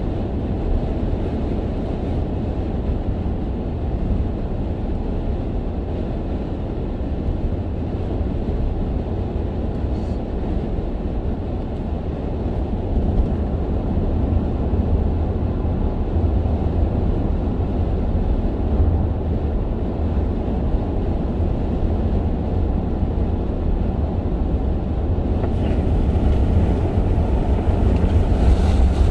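Steady low rumble of tyre and engine noise inside a moving car's cabin on a highway. A brighter hiss joins near the end.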